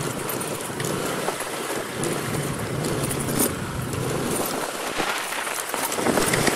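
Motorcycle riding along the road: a steady engine hum under the rush of wind on the microphone.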